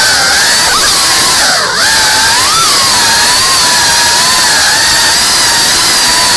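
Geprc Cinelog cinewhoop FPV drone's brushless motors and propellers whining, the pitch wavering up and down with the throttle. About a second and a half in, the pitch and level dip briefly, then the pitch climbs again.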